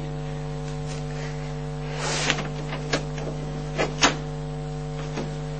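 Door handle being worked, its latch giving a few short clicks, the sharpest around four seconds in. A steady electrical hum runs underneath.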